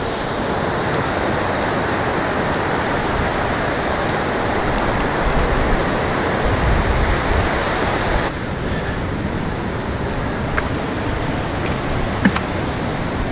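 Steady wash of surf breaking along an open beach. It turns duller about eight seconds in.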